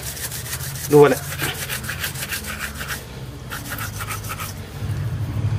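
Steel-wool scourer scrubbing the skin of a large raw tuna head in quick rasping strokes, several a second, with a short pause about three seconds in; the scrubbing clears off the fish slime and its smell.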